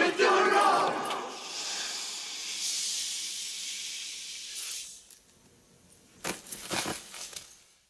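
A group's shout dying away into a steady high hiss that fades out, then near quiet. About six seconds in, a short burst of metallic jangling clicks.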